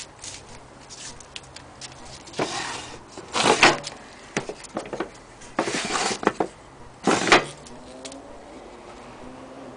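Handling noise: scattered light clicks and three short bouts of rustling, loudest about three and a half seconds in and again about seven seconds in.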